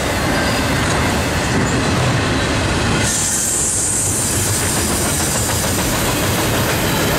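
Freight train of autorack cars rolling past: a loud, steady rumble and clatter of steel wheels on the rails, with a high hiss coming in about three seconds in.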